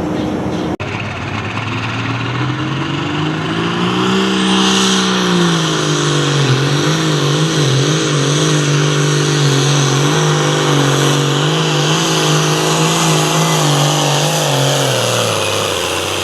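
Hot farm pulling tractor's diesel engine under full load on a pull: the revs climb over the first few seconds, hold high with a wavering pitch through the run, then drop away near the end.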